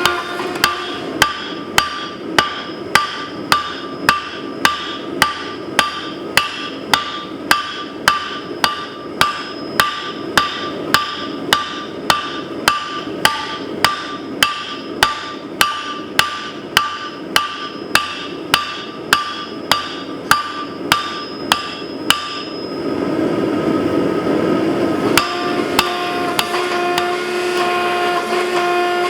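Hammer blows on steel at an anvil in a steady rhythm, about two a second, each with a bright metallic ring, for about twenty seconds before they stop. A steady machine hum runs underneath and carries on alone after the hammering ends.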